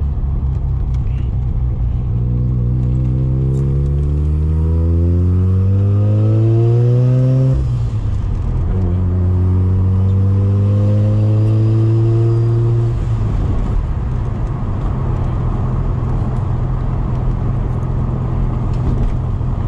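Big single-turbo Mazda RX-7 rotary engine, heard from inside the cabin, pulling hard under boost: the revs climb for about five seconds, drop sharply at an upshift, then climb again for about four seconds before the throttle is lifted and the engine settles into a lower, steady running sound.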